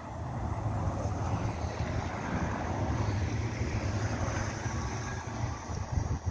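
Articulated city bus passing close by: a steady rumble with tyre and road noise, and wind on the microphone.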